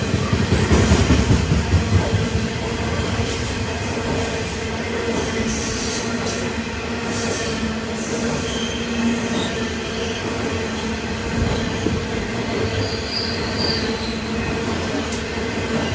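Loaded coal train's steel hopper wagons rolling past, wheels running on the rails with a steady drone. It is louder in the first couple of seconds, and there are brief high squeals about halfway through and again near the end.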